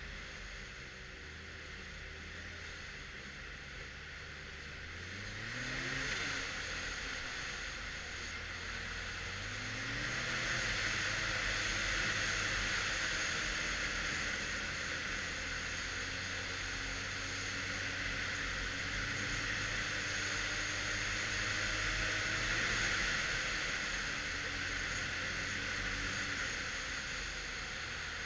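Arctic Cat XF 1100 Turbo snowmobile's turbocharged three-cylinder four-stroke engine under way on the trail, revving up twice and then holding a steady cruising pitch, easing off and picking up again near the end. A steady hiss rides over the engine once the sled is up to speed.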